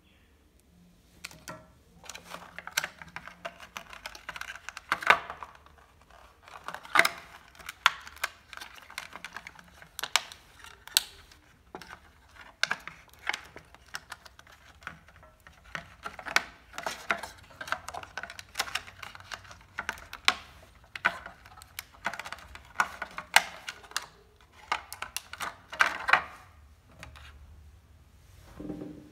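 Irregular clicking and crinkling of a thin clear plastic packaging tray being handled as earbuds and their cable are pulled out of it.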